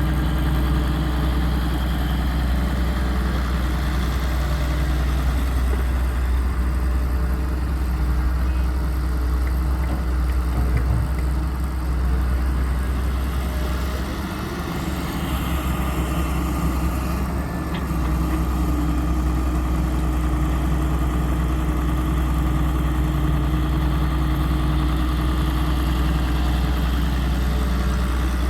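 Heavy diesel engine of earth-moving machinery running steadily with a low drone. Its level dips briefly a little past halfway, then picks up again.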